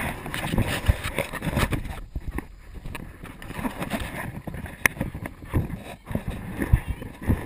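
Wind rumbling and buffeting on a wearable camera's microphone, with irregular knocks from the camera being carried along a dirt path on foot.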